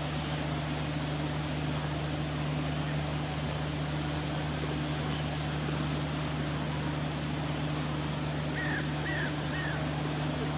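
A steady low mechanical hum with a constant drone runs throughout. Near the end, a small bird gives three short high chirps about half a second apart.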